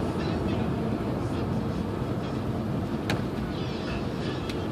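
Steady road noise inside a moving car's cabin, a low rumble of tyres and engine, with a light click about three seconds in.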